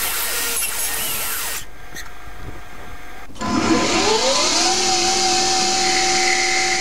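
Hercus PC200 CNC lathe cutting brass: a steady spindle whine under a hiss of cutting, then a quieter spell. About three and a half seconds in, the spindle spins up with a rising whine that levels off at 2400 rpm, and the tool cuts the end of a 9/16" brass bar with a steady hiss.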